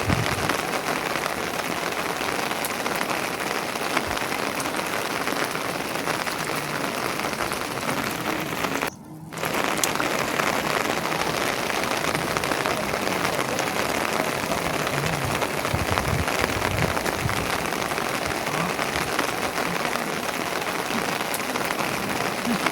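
Steady rain falling, with a brief drop-out about nine seconds in.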